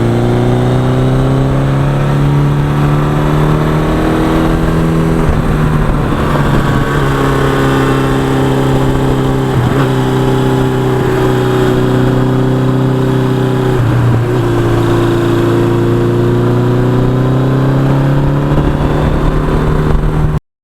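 1982 Suzuki GS1100E's air-cooled inline-four engine running steadily under way, its note breaking briefly three times, about five, ten and fourteen seconds in.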